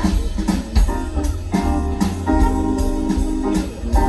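Live band playing an instrumental passage with a steady beat, without vocals.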